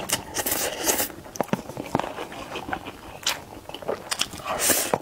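Spicy instant noodles being slurped up from chopsticks, several sucking pulls with wet chewing and smacking between them, the longest and loudest slurp near the end.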